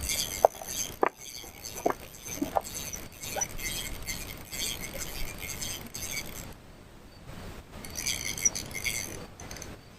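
Fishing reel being cranked while a hooked catfish is fought in, a fast clicking rattle that stops briefly about seven seconds in and then resumes, with a few sharp metallic clinks in the first seconds.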